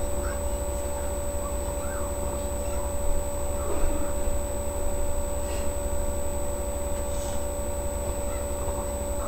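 Steady low electrical hum with a thin high whine over it, and a few faint short squeaks now and then.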